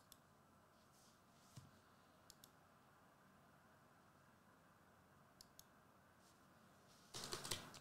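Near silence broken by a few faint computer-mouse clicks, some in quick pairs. Near the end comes a short cluster of louder clicking and handling noise.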